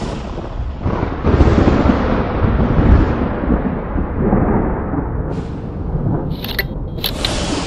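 Thunder: a long, deep rolling rumble that swells about a second in, followed near the end by a few sharp crackling lightning strikes.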